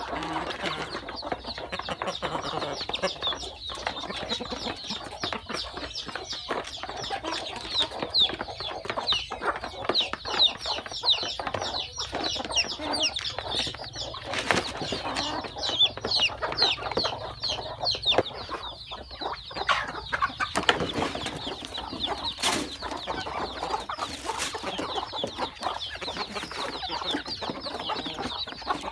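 Chicks peeping constantly in short, high, downward-sliding chirps, with a hen clucking lower beneath them and a few sharp clicks.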